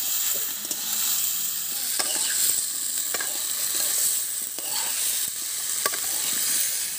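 Soybean, ivy gourd and potato sizzling as they fry in a pan, with a steady hiss; a utensil clicks and scrapes against the pan a few times as the food is stirred.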